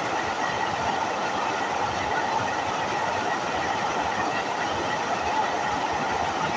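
Waterfall: water falling and splashing in a steady rushing roar.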